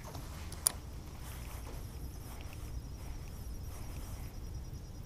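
Baitcasting reel engaging with a single sharp click about two-thirds of a second in, then a faint steady high whine, over a low rumble.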